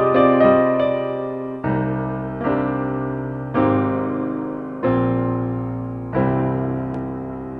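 Piano music: a few quick notes at the start, then five slow chords, each struck and left to ring out and fade.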